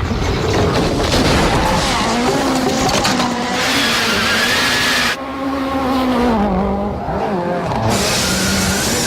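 Ken Block's Ford Fiesta competition car, its engine revving and changing pitch repeatedly as it is driven hard, over a loud rushing hiss. For about three seconds in the middle the hiss drops away and the engine note falls.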